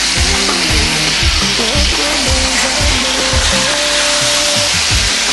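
Fresh fish frying in a pan of hot oil, a steady sizzle, with background music playing over it.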